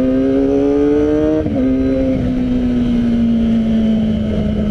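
Kawasaki ZX-25R's 250 cc four-cylinder engine running through a full-system Arrow exhaust while riding. The pitch climbs steadily, drops sharply about a second and a half in, then slowly sinks.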